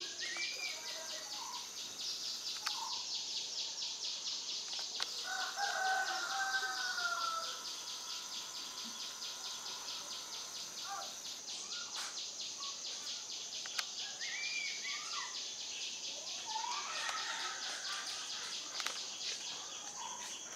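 A steady, high-pitched insect chorus that pulses rapidly, with birds calling over it several times. The longest call, about two seconds long, comes around five to seven seconds in.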